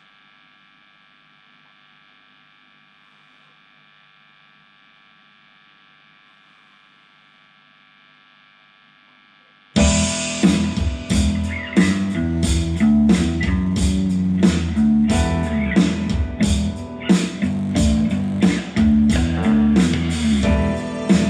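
Faint steady electrical hum from the amplification gear, then about ten seconds in loud guitar music with a bass line and a steady beat starts suddenly.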